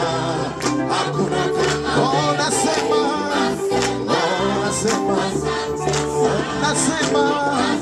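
Gospel choir singing an upbeat song with live band accompaniment and a steady beat.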